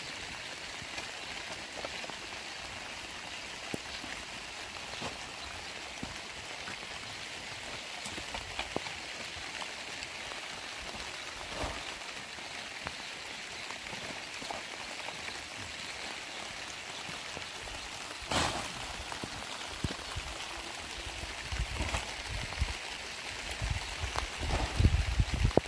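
Steady rain falling, with a shovel scraping and dumping wet earth: one sharp scrape about three-quarters of the way in and a run of heavier knocks near the end.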